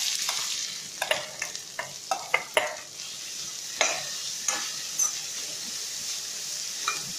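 Freshly added chopped onions sizzling in hot oil in a kadai, with a steady frying hiss. A metal slotted spatula stirs them, scraping and clicking against the pan in quick strokes over the first few seconds, then a few lighter taps.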